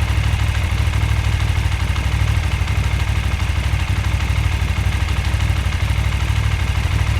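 Motorcycle engine idling steadily while stationary: a low, even, rapidly pulsing run with no revving.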